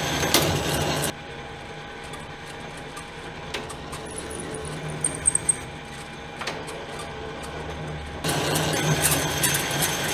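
Hardinge HLV lathe running under power during a threading pass: a steady motor and gear-train whir. It drops to a quieter hum about a second in and comes back loud about eight seconds in, with a few faint clicks in between.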